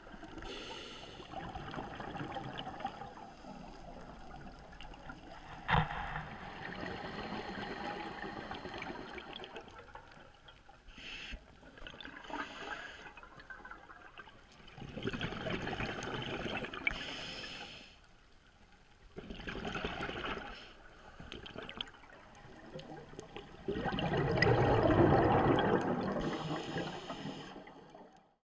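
Underwater sound heard through a camera housing: bubbling and gurgling from scuba divers' exhaled air, coming in swells a few seconds apart with quieter gaps between, the loudest near the end. A sharp knock about six seconds in.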